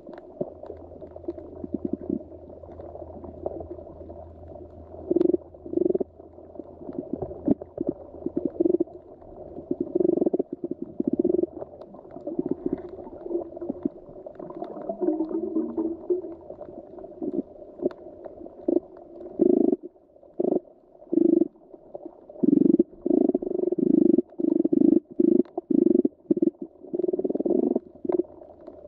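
Muffled underwater ambience: a steady low rumble of moving water with irregular louder gurgling surges, more frequent in the second half.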